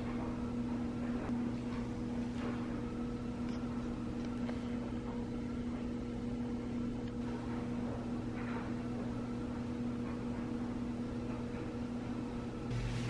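Steady low electrical hum running unchanged, with a few faint brief sounds over it.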